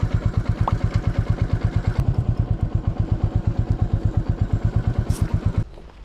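Single-cylinder engine of a Royal Enfield Meteor 350 motorcycle idling close by, with a fast, even beat of firing pulses. It cuts off suddenly near the end.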